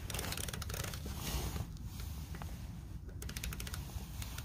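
Torque wrench mechanism clicking in two quick runs of small metal clicks on a lug nut: one for about a second at the start and a shorter run about three seconds in, over a low steady rumble.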